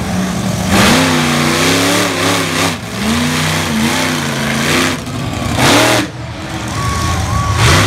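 Monster truck engine revving hard, its pitch rising and falling, with several loud bursts of throttle.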